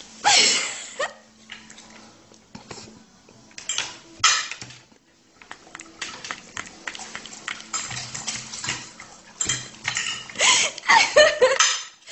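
Irregular clinks and taps on a ceramic plate as food is picked off it and a dog eats from it.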